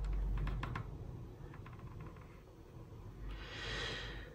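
Faint handling noise from fingers moving a mains cable inside a metal instrument chassis: a few light clicks and rustles over a low rumble, then a soft hiss near the end.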